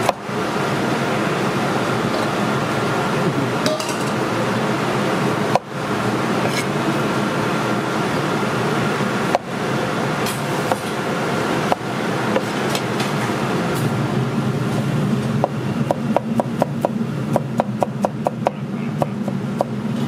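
Chef's knife cutting bell peppers on a wooden cutting board, with scattered knocks and then a quick run of chopping knocks, about five or six a second, in the last few seconds. Under it runs a steady loud background rumble.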